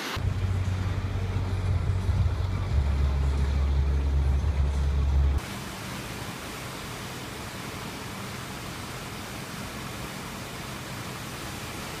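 A loud, steady low rumble that cuts off suddenly about five seconds in, followed by the even rushing roar of a muddy flash-flood waterfall pouring over a sandstone cliff.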